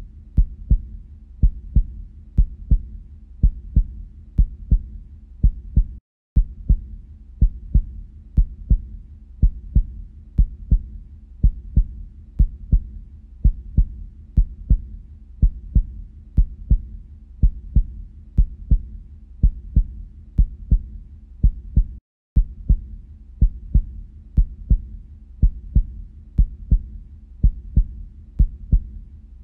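Heartbeat sound: a steady rhythm of low lub-dub double beats, breaking off for an instant twice.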